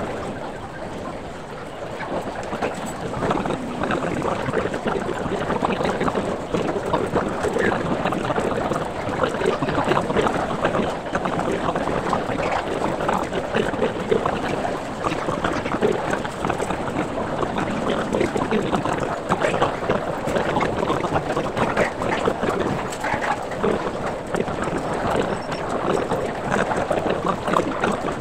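Sped-up restaurant background sound: a dense, garbled, continuous wash of voices and noise.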